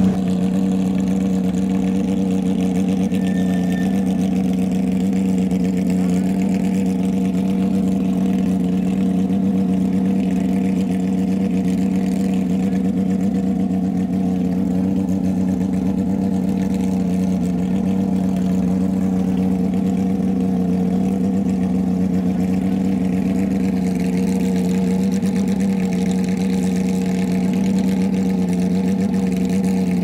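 Porsche 997 GT3 rally car's flat-six engine idling steadily.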